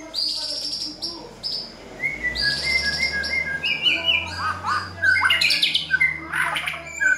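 White-rumped shama (murai batu) singing a fast, varied song. It opens with buzzy, rasping notes, moves into clear whistled phrases, and ends in a dense run of quick chirps and trills that grows louder in the second half.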